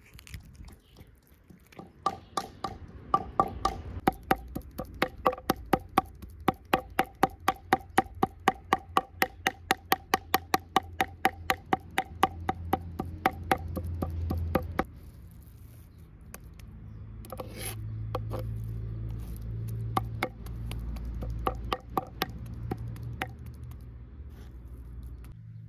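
Rapid, even knocking on wood, three to four strokes a second, that stops about fifteen seconds in, followed by a few scattered softer clicks.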